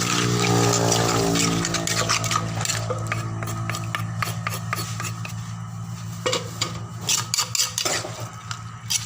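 Utensils clicking and scraping against a mortar as seafood papaya salad is stirred and mixed, in many quick irregular strikes. Under it runs a steady low engine hum that is loudest in the first few seconds and then fades.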